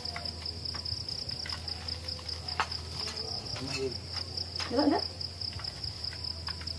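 Crickets trilling in a steady, high-pitched chorus, with light clinks of plates and utensils and a short vocal sound about five seconds in.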